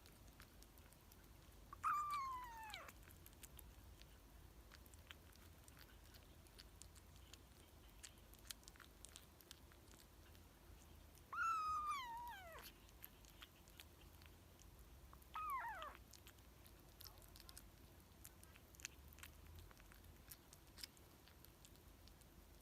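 Kitten meowing three times while eating, each meow a cry that falls in pitch, about a second long, the last one shorter. Faint chewing clicks between the meows.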